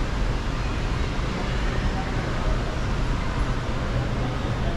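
Steady, even ambience of a large airport terminal hall: a constant deep rumble under a soft hiss, with no distinct events.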